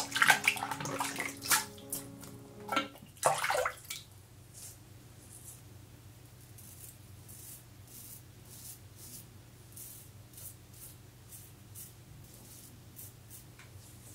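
Water splashing in the sink for the first few seconds as the razor is rinsed. Then the faint scraping of a Leningrad-1 safety razor's short strokes across lathered stubble, about two a second.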